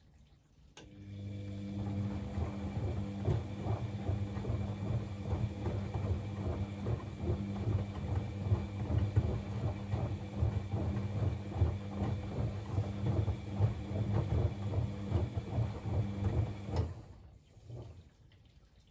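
Bosch WFCX 2460 front-loading washing machine turning its drum during the wash: the motor starts about a second in with a steady hum under the sloshing and slapping of the wet blanket inside, then stops about two seconds before the end.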